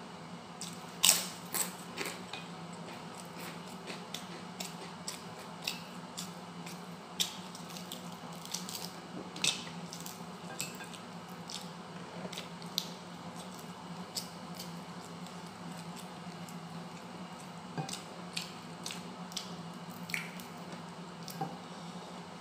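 Close-up eating sounds: wet chewing and sharp mouth clicks and smacks, scattered irregularly and loudest about a second in, from a man eating fried fish and rice by hand, over a steady low hum.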